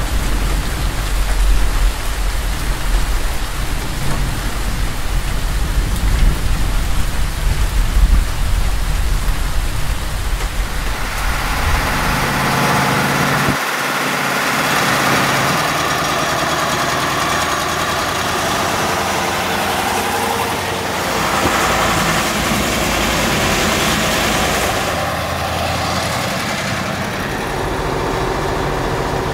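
A 1979 Mercedes-Benz NG 2626 truck's diesel engine running with a deep rumble. After about twelve seconds the sound turns to a steady hiss of tyres on a wet road, with the engine beneath it.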